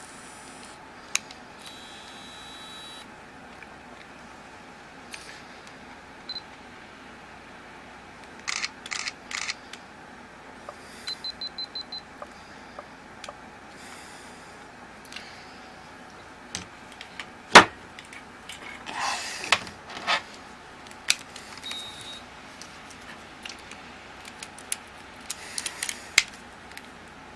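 Canon IXY 150 compact digital camera sounding its electronic beeps: one held beep, then a quick run of about five short beeps. Clicks and handling knocks come in between, the loudest a sharp click a little past the middle.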